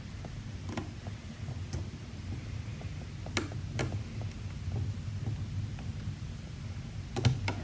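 Light, scattered clicks of a lock pick working the pins inside a Yale-based pin-tumbler challenge lock, a few seconds apart. Near the end, two quick sharper clicks as the core turns over and the lock opens.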